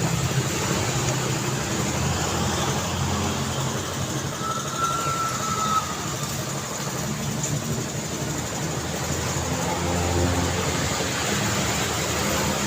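Steady road traffic: cars and trucks passing, a continuous tyre-and-engine hum with the low rumble swelling as a vehicle passes near the end. A brief high steady tone sounds about five seconds in.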